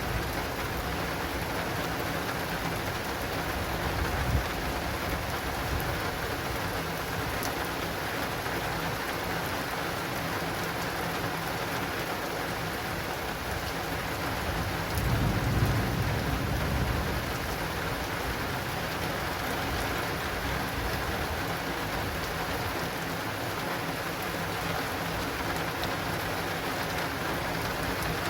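Heavy thunderstorm rain falling steadily on an acrylic rain awning, with a low rumble of thunder swelling for about two seconds roughly halfway through.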